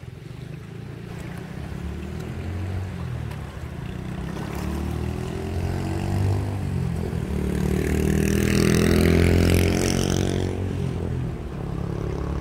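An engine passing by: it grows louder to a peak about nine seconds in, its pitch bending as it goes past, then fades.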